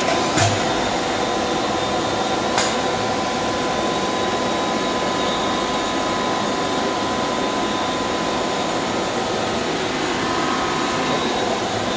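Steady whirring hum of a powered-up CNC vertical machining center and its cooling fans, with a thin steady whine over it. Two faint clicks come in the first few seconds.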